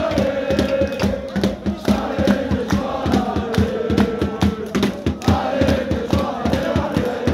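A crowd of football supporters chanting together in long held notes, over steady rhythmic hand-clapping.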